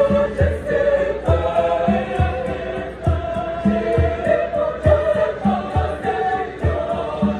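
Girls' choir singing a Shona hymn in parts, with a steady low beat just under once a second underneath the voices.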